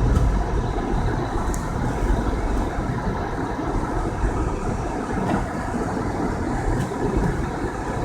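Car driving on a snow-covered road: a steady low rumble of tyres and engine.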